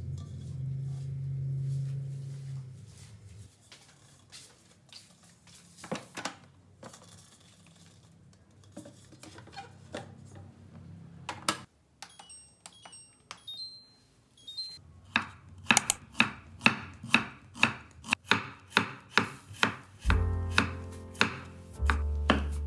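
Rice being swished in water in a pot, then a few clicks and short high beeps from an electric rice cooker's buttons being pressed. Next comes a kitchen knife chopping shallots and chillies on a wooden cutting board, with regular sharp knocks at about three a second, the loudest part. Music comes in near the end.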